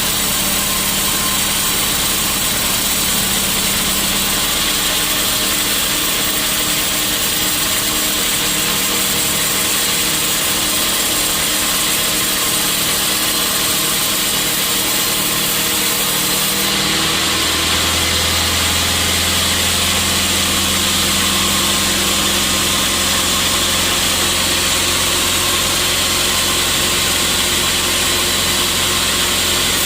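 Sawmill machinery running steadily, with a deeper hum coming in a little over halfway through.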